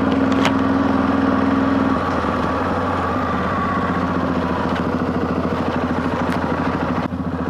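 Yamaha Ténéré 660's single-cylinder engine running at a steady, low speed while riding, its note easing slightly about two seconds in. A few sharp clicks sound over it.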